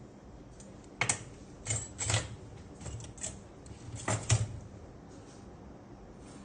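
A handful of sharp clicks and clacks in small clusters: one about a second in, a pair near two seconds, a single one near three seconds, and a louder pair around four seconds.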